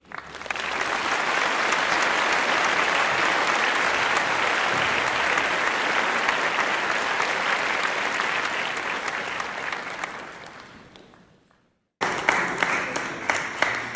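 Audience applauding, a dense steady clapping that fades out. After a short silence, a few scattered claps.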